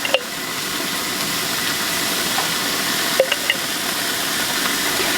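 Sauced pork chops sizzling steadily on a gas grill, grease still spitting over low burners, with a couple of light clicks.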